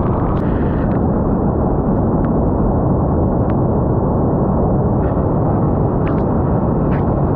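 Wind buffeting the microphone of a GoPro Hero 9 filming in the rain: a loud, steady, dull rumble, with a few faint ticks.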